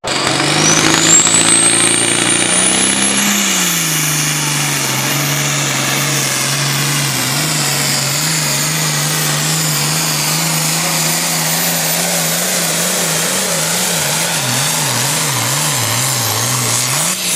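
Hot farm class pulling tractor's engine running at full power under load: the revs climb over the first few seconds with a high whine rising alongside, then hold steady. Near the end the engine note wavers rapidly up and down.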